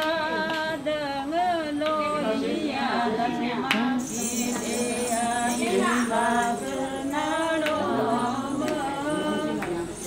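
Singing with music: voices carrying a wavering melody over a low note held steady beneath.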